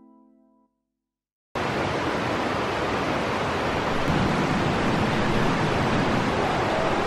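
Steady rushing of a river flowing over rocks, which starts abruptly about a second and a half in. Before it, a soft keyboard chord fades out into a moment of silence.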